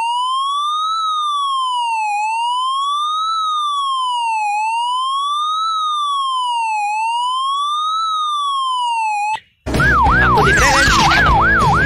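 Electronic police siren sounding a slow wail, its pitch sweeping up and down about every two and a half seconds. Near the end it cuts off suddenly, and a faster yelping siren starts, about four sweeps a second.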